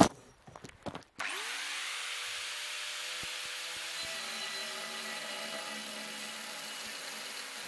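Angle grinder switched on about a second in, its pitch rising as it spins up, then running steadily as its cut-off disc cuts through steel plate. A few light clicks come before it starts.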